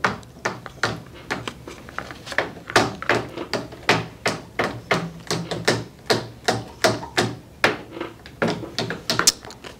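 Irregular sharp clicks and taps, several a second, from topic cards being flicked through in a small box held close to a handheld microphone.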